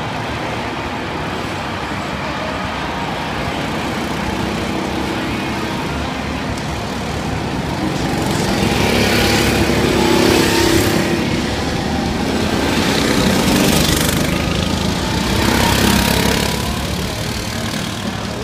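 Go-kart engines running as several karts lap the track, with three louder swells in the second half as karts pass close by, the loudest about ten seconds in.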